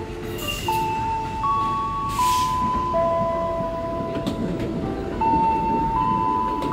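A simple electronic melody of slow, sustained notes stepping from one pitch to the next, over the low rumble of an electric commuter train at the platform, with a short hiss of air about two seconds in.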